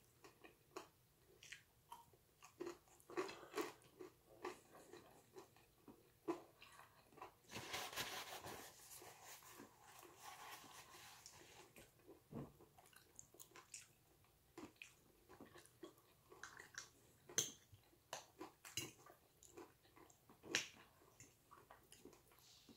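A person eating at close range: quiet chewing with many short clicks of a metal fork against a ceramic plate, and a few seconds of rustling noise about eight seconds in.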